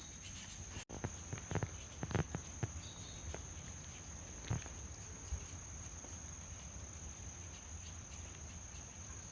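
Steady high-pitched insect chorus, with a few soft knocks and light steps in the first few seconds and one more about halfway through.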